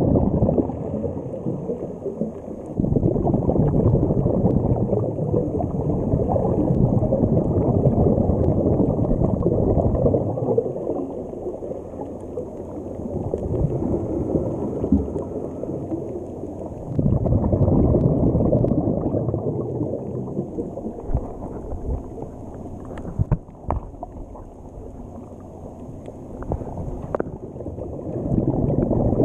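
Muffled underwater water noise, a churning, bubbling rush that swells and fades in long waves. Near the end it drops lower and a few sharp taps or clicks stand out.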